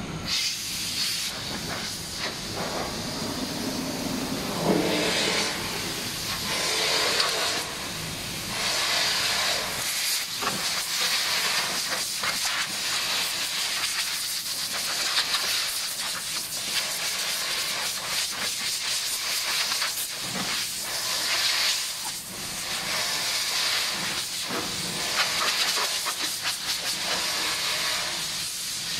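Compressed-air blow gun hissing in repeated blasts of varying strength, blowing leftover powder coating off a powder centre's sieve and out of its hopper during a colour change.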